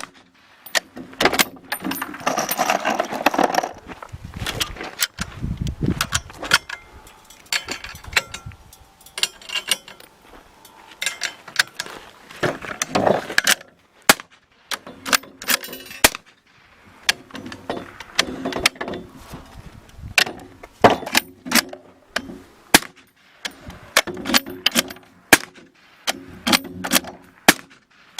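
Suppressed gunshots fired again and again: dozens of sharp cracks at irregular spacing, sometimes several in quick succession.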